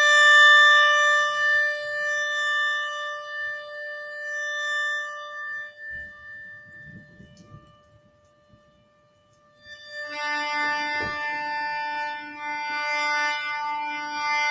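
Instrumental music. A long held note with rich overtones fades away over about six seconds. After a short pause, a lower held note comes in about ten seconds in and sustains.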